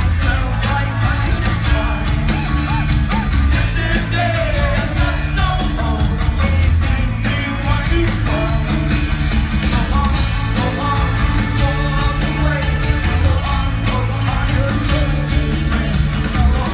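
A live rock band playing loud, with a male singer's voice over guitars, bass and drums, amplified through a PA and heard from the audience.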